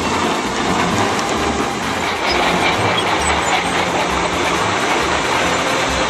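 Combine harvester running in a wheat field: a loud, dense, steady mechanical noise with a low throb pulsing through it.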